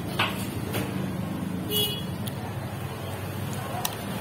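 Metal spoon and fork clinking and scraping on a plate of rice while eating, a few sharp clinks with a brief high ring near the middle, over a steady low background rumble.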